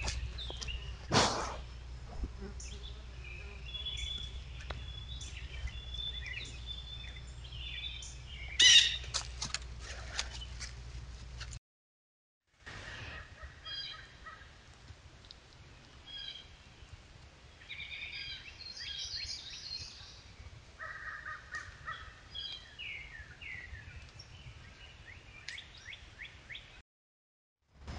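Wild birds chirping and calling, many short calls throughout, with a louder sudden sound about a second in and another just before nine seconds.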